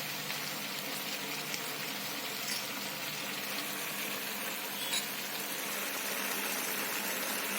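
Green chilli pieces and tomatoes sizzling gently in oil in a kadai on a low flame, softening with tamarind paste just added. Two faint taps, about two and a half and five seconds in.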